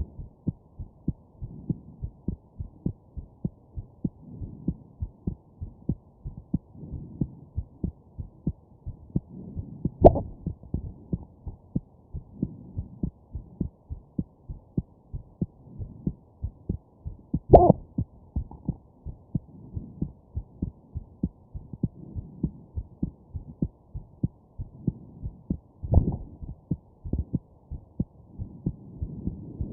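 A person's heartbeat beating steadily. Three louder, sharper thumps from hiccups break in, about a third of the way in, past the middle, and near the end.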